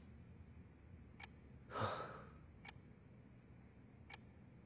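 A man's weary sigh about two seconds in, over near silence. Faint, evenly spaced clicks sound about every second and a half.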